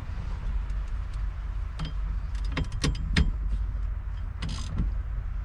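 Irregular sharp metallic clicks and a short scrape as the steering shaft nut is threaded on and worked with a hand tool, over a steady low hum.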